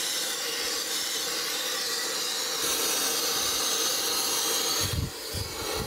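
Gas torch flame hissing steadily as it heats the inside of a cast iron cylinder casting to expand the bore around a stuck valve sleeve. A low rumble comes in near the end.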